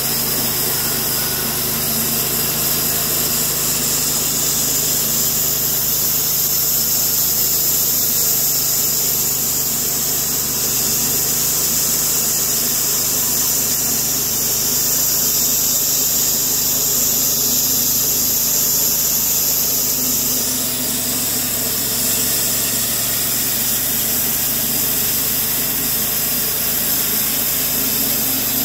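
Cook's 51-inch Super Wide thin-kerf band sawmill running and sawing steadily through a large box elder burl, its band blade cutting with a constant high-pitched whine over the machine's running drive.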